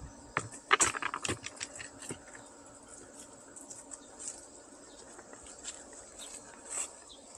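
Quick run of crunching and clicking footsteps, from a person and small dogs on leashes crossing gravel and wooden planks, about a second in, then a few lighter steps on grass over a faint steady insect drone.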